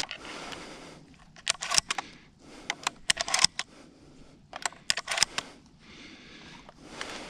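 A sharp knock, then footsteps crunching on dry leaves and a dirt road, coming in three short clusters of crisp clicks and crunches.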